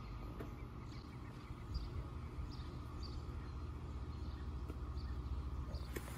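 Quiet backyard ambience: faint bird chirps repeating about twice a second over a low steady rumble.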